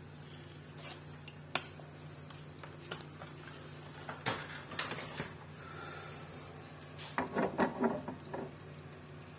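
A metal spoon clinks and knocks against a small frying pan holding oil, cumin seeds and whole dried red chillies for a tadka. The clinks come singly at first, then in two short clatters, over a steady low hum.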